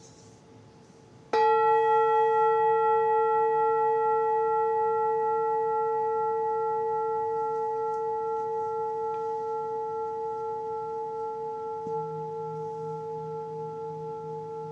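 Singing bowl struck once about a second in, then ringing on with a long, slow fade and a gentle wavering in its tone. A lower, pulsing tone joins near the end.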